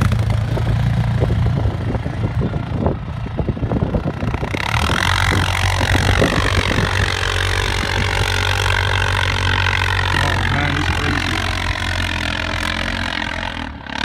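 ATV engine running: a steady low engine note throughout, with crackling in the first few seconds, then from about four seconds in a higher, wavering engine whine as the quad revs hard climbing a steep snowy hill.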